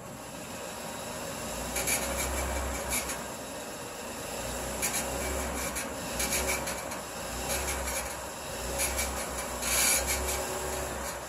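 Unexplained noise from the front wheel area of a Jeep Wrangler Unlimited (JK): a low rumble with short, harsh hissing noises that recur irregularly every second or so, the loudest about ten seconds in.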